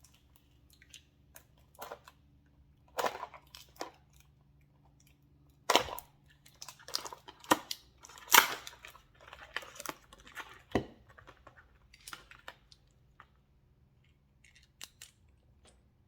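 Plastic packaging being opened and handled: irregular crinkling and rustling in bursts, with a few sharper clicks.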